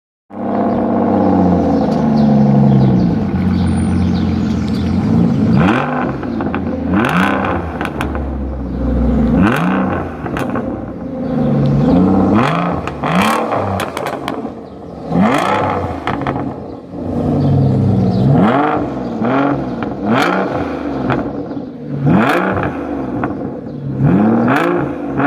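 Aston Martin DBS engine running, then revved again and again in short blips from about five seconds in. As each rev falls back, the exhaust crackles and pops on the overrun.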